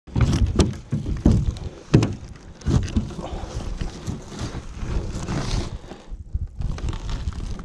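Fish and gill net being handled on a boat's deck: a run of knocks and thumps in the first three seconds, then scuffing and rustling. Wind buffets the microphone with a steady low rumble throughout.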